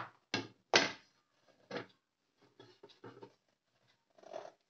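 Light knocks and scrapes of a plate being set down over a metal cake tin: two sharp knocks in the first second, another just before two seconds in, then a few fainter taps.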